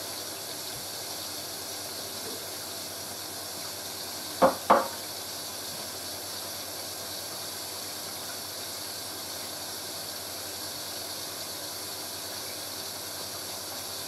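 Hoover A3060 Electronic 1100 washing machine filling with rinse water, a steady hiss of water running in through the inlet. Two short knocks about four and a half seconds in.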